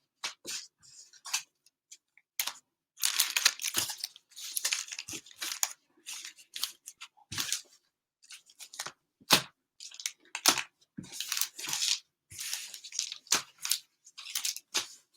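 Plastic wrappers of trading-card cello packs being torn open and crinkled by hand, in many short rips and a few longer tearing stretches with quiet gaps between.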